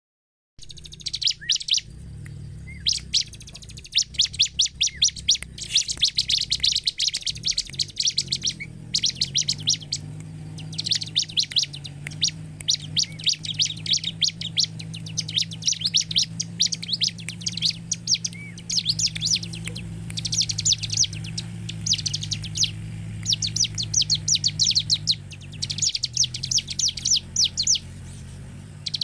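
Bar-winged prinia (ciblek) singing: rapid, high-pitched chattering trills in bursts of one to two seconds, repeated with short gaps, over a faint steady low hum.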